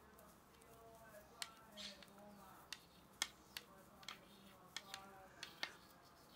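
Wooden knitting needles clicking against each other as stitches are worked, quiet, sharp ticks at an uneven pace, about eight in all.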